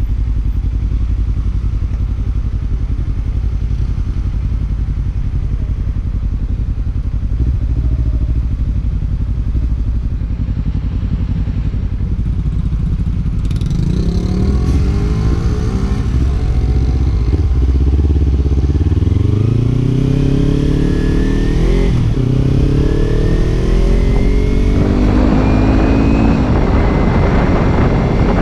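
Kawasaki Ninja 300's parallel-twin engine running at a steady low idle, then from about halfway revving up through the gears, its pitch climbing and dropping back several times. A broad rush of wind builds near the end.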